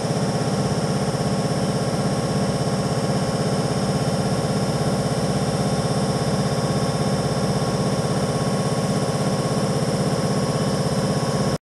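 A machine running steadily with a rapid, even pulse, like an engine idling. It stays unchanged throughout and cuts off suddenly at the end.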